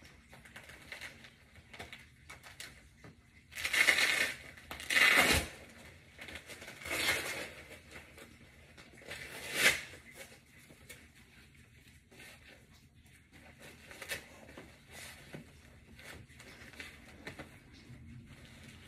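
Hook-and-loop straps of a weight vest being pulled open and pressed shut as it is fastened: four rasping tears, each a second or less long, in the first half, then only small rustles of the straps and vest.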